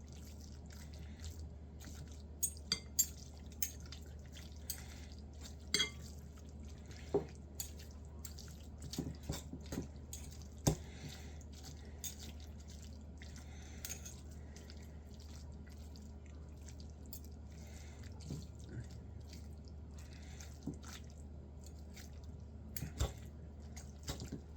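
Two forks shredding slow-cooked, fall-apart-tender birria beef in its pot of juices: irregular clinks and scrapes of metal against the pot over a steady low hum.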